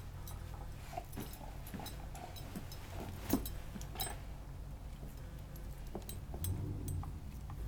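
A puppy chewing and mouthing a rubber Kong toy: scattered sharp clicks of teeth on rubber and jingling collar tags, with one stronger knock about three seconds in, the clicks thinning out in the second half.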